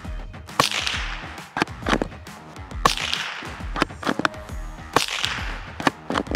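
Three suppressed .22 LR rifle shots from a Hammerli Arms Force B1 straight-pull rifle, each a sharp crack with a short trailing hiss, about two seconds apart, with shorter sharp clicks between them. Background music plays underneath.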